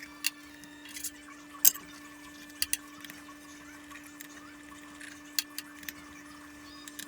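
Scattered sharp metallic clicks and clinks, the loudest about two seconds in: hand tools and small steel parts against the cast cutterhead of a Delta 12-inch planer as the blade plate's screws come out and the plate is lifted off. A steady low hum runs underneath.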